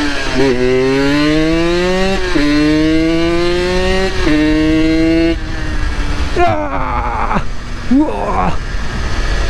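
Small two-stroke sport motorcycle accelerating hard, its engine pitch climbing and dropping at each of three quick upshifts. About five seconds in the throttle closes and the engine falls away as the bike slows, with a couple of short blips of revs near the end, over wind rush.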